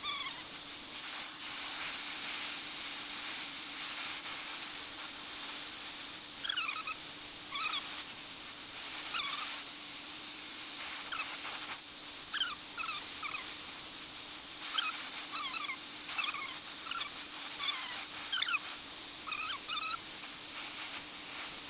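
Handheld gas torch hissing steadily while its flame heats steel bicycle fork tubes. Short, high, squeaky whines recur in small clusters on top of the hiss, like an animal whimpering.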